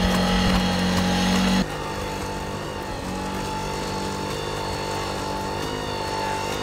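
Engine of a four-legged pack robot running with a steady drone. About one and a half seconds in, the sound cuts abruptly to a quieter drone of a different pitch.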